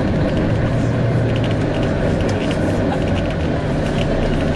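Volvo B9TL double-decker bus heard from inside the lower-deck saloon: a steady drone of the engine and cooling fan, with scattered light rattles and creaks from interior panels and fittings.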